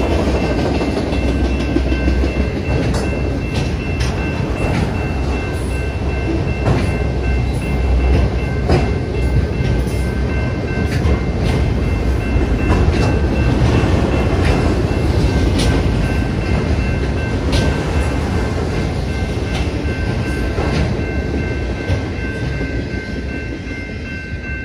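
Autorack freight cars rolling past at a grade crossing: a steady rumble with sharp clicks of the wheels over the rail joints, while the crossing's warning bell rings over and over. The rumble fades over the last couple of seconds as the end of the train clears the crossing.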